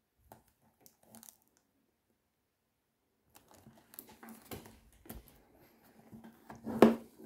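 Plastic film wrap on a perfume box crinkling and rustling as the box is turned over in the hand, with irregular light clicks. It starts about three seconds in, and there is a louder bump near the end.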